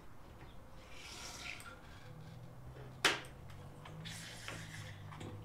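Quiet handling sounds: a faint rubbing, then a single sharp click about three seconds in, over a low steady hum.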